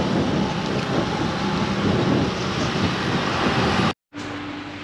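Steady hiss of rain on a wet road with motorbike and traffic engines running through it. It cuts off about four seconds in, leaving a quieter low hum.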